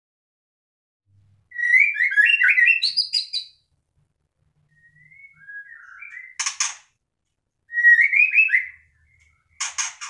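White-rumped shama (murai batu) singing in four short phrases with pauses between. The phrases are quick warbled whistles, some ending in harsh, scratchy notes.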